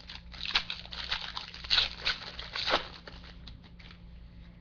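Crinkling and tearing of a baseball card pack wrapper as it is ripped open: a quick run of sharp crackles and rips over about three seconds, then a few faint taps of handling.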